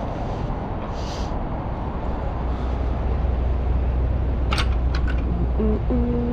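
Vehicle engine running with a steady low rumble. A few sharp clicks come about halfway through, and a short steady tone sounds near the end.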